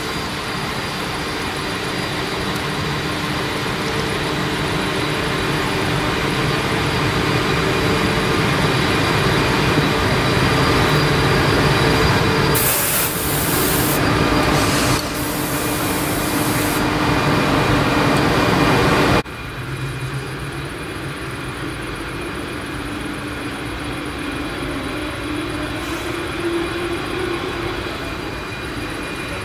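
ČD class 680 Pendolino electric train rolling slowly past, with a steady hum and the noise of its wheels on the rails; two short bursts of hiss come about halfway through. After a sudden cut, the quieter hum of the train approaching.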